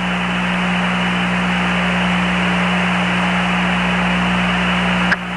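Steady radio hiss with a low hum on the Apollo 11 air-to-ground voice link, the channel open with no one talking; it drops out briefly about five seconds in.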